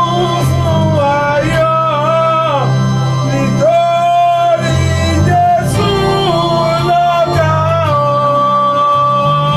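Yoruba gospel music: a melodic lead line of long held notes with smooth slides between them over a steady bass, with no clear sung words.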